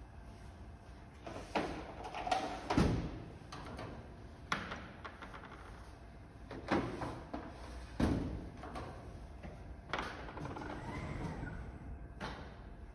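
Irregular knocks and clatters of small plastic bins and parts being handled at a Kardex Megamat RS 350 vertical storage carousel. A steadier mechanical running sound lasts about two seconds near the end as the carousel's carriers move to the next pick position.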